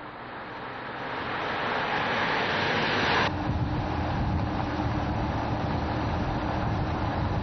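Mercedes-Benz S65 AMG driving by on the road: a rush of tyre and wind noise swells for about three seconds, then cuts off abruptly to a lower, steady drone of engine and road.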